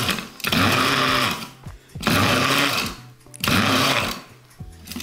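Electric mini chopper pulsed in four bursts of about a second each, its motor whirring up and falling back each time as the blade grinds granulated sugar with lemon verbena leaves into a gritty rattle.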